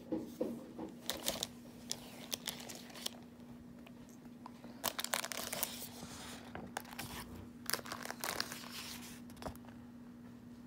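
Paper cross-stitch pattern chart rustling and crinkling as it is handled, in three bunches of crackles, over a faint steady low hum.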